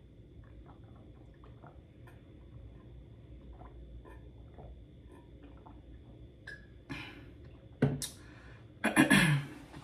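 Drinking from a water bottle: faint swallows for several seconds, then a sharp knock and a loud voiced exhale that falls in pitch as the drink ends.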